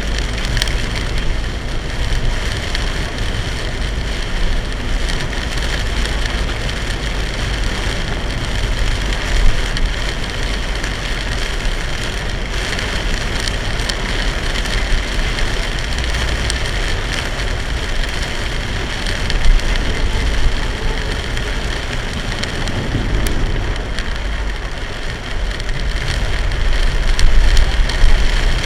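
Torrential rain drumming on a moving car, with a low rumble of road noise beneath it, getting louder near the end.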